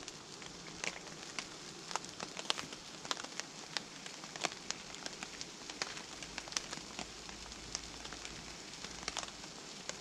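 Food frying in a pan on a gas camping stove: a steady sizzle broken by many irregular pops and crackles of spitting fat.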